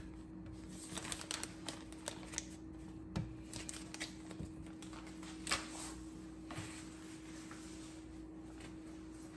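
Scattered light clicks and taps of kitchen handling while the second batch of break-apart cookie dough is set out for baking, thickest in the first six seconds and then thinning out, over a steady low hum.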